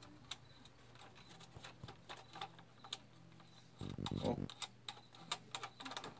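Small scattered clicks and ticks of a plastic propeller and a small wrench being handled while the nut holding the propeller on a drone motor is tightened. A short, louder low sound comes about four seconds in.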